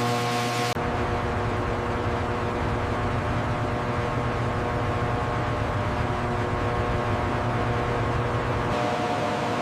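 Steady mechanical rumble with hiss and faint humming tones underneath. Less than a second in it suddenly replaces a horn-like drone.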